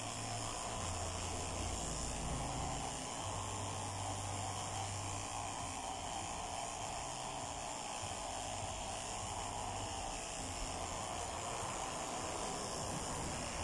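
Electric dog clippers running steadily as they shave a Maltese terrier's coat: a low hum under a steady hiss, the hum fading and returning a few times as the blade moves through the fur.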